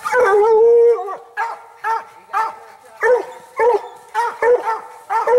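Coonhound barking treed at the base of a tree: one long drawn-out bark in the first second, then a steady run of short barks, about two a second, the sign that she has a raccoon up the tree.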